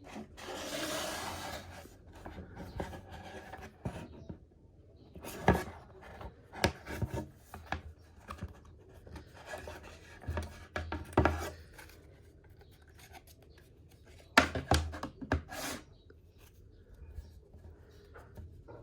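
Handling noises: a rubbing swish at the start, then scattered clicks and sharp knocks of objects being moved and set down.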